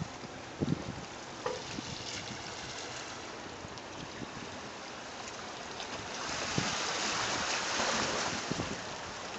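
Bay water sloshing and gurgling in the Wave Organ's pipes and washing against its granite rocks, with a few low knocks. A louder rush of surf swells about six seconds in and fades before the end.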